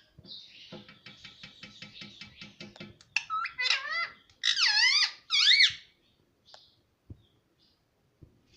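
Ringneck parrot chattering in a quick run of short notes, about six a second, then giving several loud squawks that swoop up and down in pitch.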